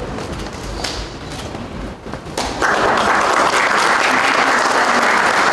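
Audience applause that breaks out suddenly about two and a half seconds in and carries on as steady, dense clapping. Before it there is a low room murmur with a couple of light knocks.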